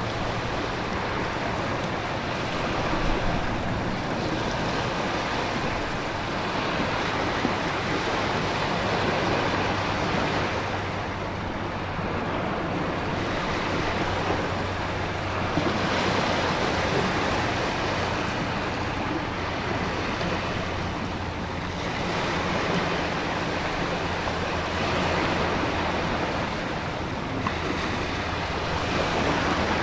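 Storm ambience of heavy rain, wind and ocean waves crashing on a rocky shore: a dense, steady rushing that swells and eases every few seconds over a low, steady rumble.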